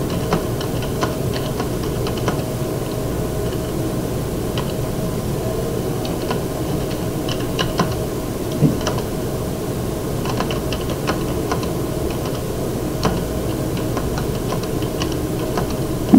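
Typing on a computer keyboard: irregular runs of keystrokes, a few of them louder, over a steady low background hum.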